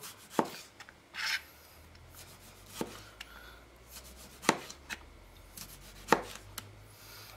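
Kitchen knife slicing a tomato on a plastic cutting board: four sharp knocks of the blade hitting the board, one every couple of seconds, with fainter ticks between.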